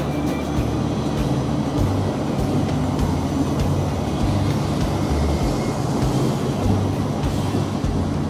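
Dutch NS Koploper (ICM) electric intercity train rolling past along a platform, a steady rumble with scattered clicks, under background music.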